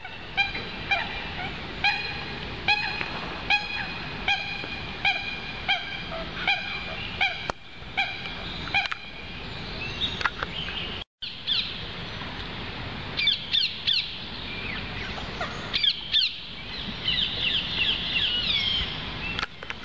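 Waterfowl on a lake honking. One bird calls over and over, a little more than once a second, for the first half. After a brief break, a busier mix of overlapping calls with rising and falling notes follows, thickest near the end.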